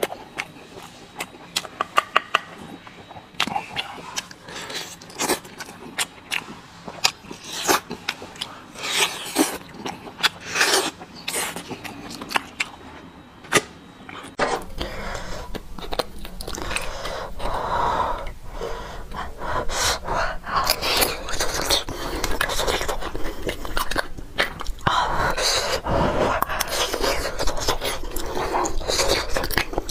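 Close-miked eating of bone marrow: wet sucking, smacking and chewing with many sharp clicks as marrow is sucked out of bone sections. About halfway through the sound changes to denser chewing, with a spoon scraping marrow from roasted bone.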